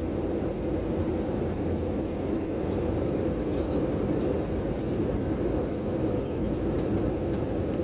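Steady jet engine and airflow noise inside an airliner cabin, heard from a window seat beside the engine during the approach. It is an even, low rumble that holds at one level throughout.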